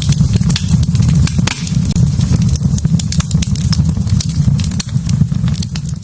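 Wood fire burning in a fireplace, crackling with many sharp pops over a steady low rumble.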